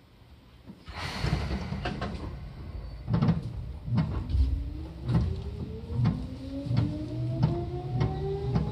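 Seibu 2000 series electric train pulling away: a sudden hiss about a second in, then the wheels thumping over rail joints at a steady pace while the motor whine rises steadily in pitch as the train gathers speed.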